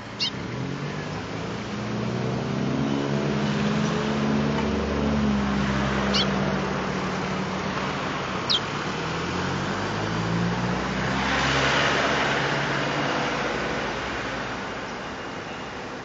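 A motor vehicle's engine running nearby, its pitch rising and falling, with a rushing swell about two-thirds of the way through as it passes. Three short, high chirps from a caged bird sound over it: one at the start, one about six seconds in and one about eight and a half seconds in.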